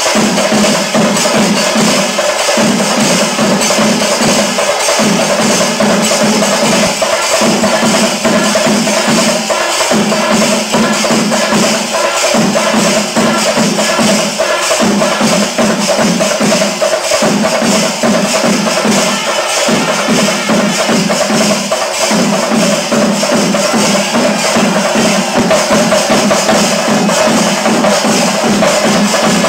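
Music with dense, steady percussion, clacking and jingling, over a low note that breaks off and returns about every two and a half seconds.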